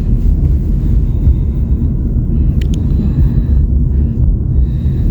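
Steady low rumble of road noise heard inside a moving car, with two quick clicks about two and a half seconds in.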